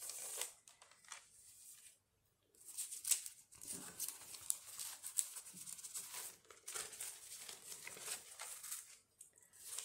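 Sheets of decorative paper rustling and crinkling as they are handled, lifted and laid down. There is a brief rustle at the start, a short pause, then steady rustling from about two and a half seconds in until near the end.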